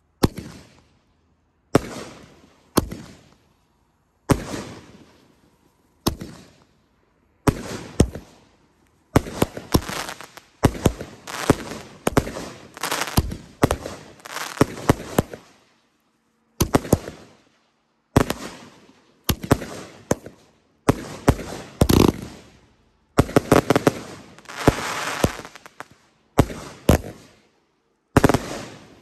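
Consumer fireworks going off in a ground display: sharp bangs and crackles. At first the bangs come singly, a second or two apart; later they come in dense volleys, with a brief lull about halfway through.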